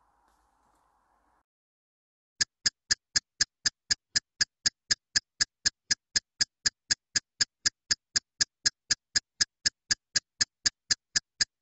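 Countdown-timer ticking sound effect: identical sharp ticks, evenly spaced at about four a second, starting about two seconds in after a faint room hiss.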